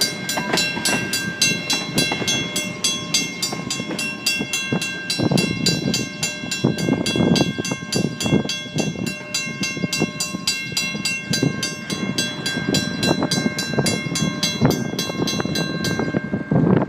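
Mechanical grade-crossing bell, a WCH first-generation type, ringing with rapid, even strokes over the rumble of tank cars rolling past on the rails. The bell stops suddenly near the end while the rolling noise goes on.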